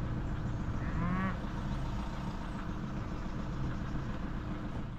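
Steady low rumble of wind on the microphone, with one short call from a young cow about a second in, rising then falling in pitch.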